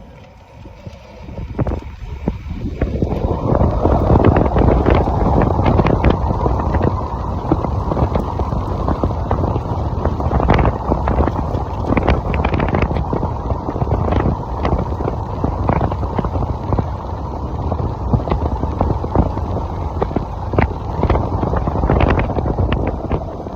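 Wind rushing and buffeting over the microphone of a riding electric motorcycle, building up about two seconds in as the bike gathers speed, then staying loud and steady with scattered crackles.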